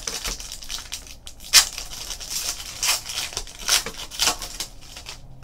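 Foil wrapper of a Panini football card pack being torn open and crinkled off the cards: a run of sharp crackles, the loudest about a second and a half in.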